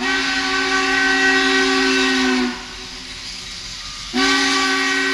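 Steam locomotive whistle blowing two long blasts, sounding several notes at once over a steam hiss. The first blast lasts about two and a half seconds; steam hiss carries on quietly in the gap, and the second blast starts about four seconds in.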